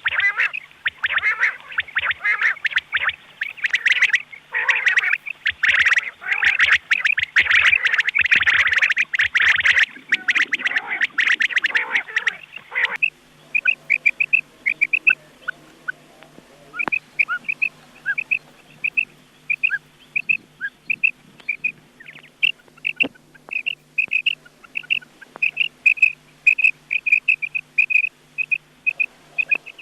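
Recorded quail calls used as a hunting lure, on a thin-sounding recording over a steady low hum. For about thirteen seconds the calls run together as dense, loud chattering. After that they are short, clear notes repeated in quick groups.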